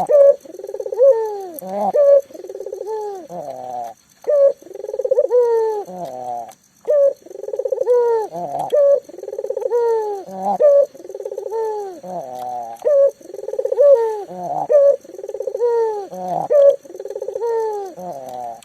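Local puter dove (ringneck dove) cooing vigorously and without pause, a loud phrase repeated about every two seconds. Each phrase is a run of quick coos ending in a deeper note.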